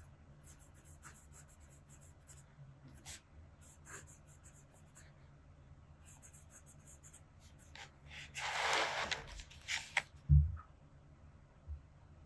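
Nahvalur Nautilus fountain pen's double broad nib scratching faintly across paper in short writing strokes. Roughly two-thirds through comes a louder rustle lasting about two seconds, then a single low thump.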